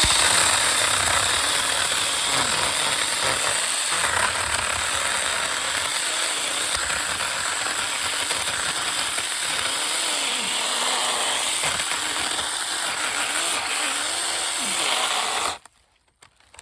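Saker 20-volt cordless mini electric chainsaw running and cutting through a small log: a loud, steady chain-and-motor noise that starts abruptly and cuts off about fifteen and a half seconds in, when the cut is done.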